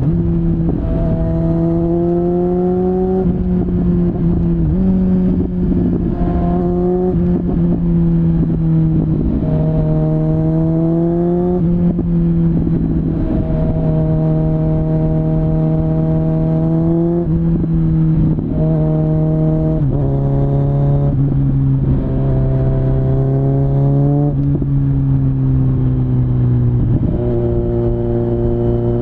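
Kawasaki Z900 inline-four engine through a LeoVince LV10 slip-on exhaust, heard onboard while riding: the note climbs with the revs several times, steps in pitch at gear changes, and holds steady between.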